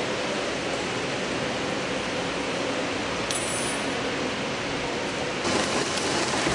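Tymi Octans-126T automatic thermal laminating machine running: a steady mechanical noise with a faint hum. About five and a half seconds in, the noise turns louder and brighter.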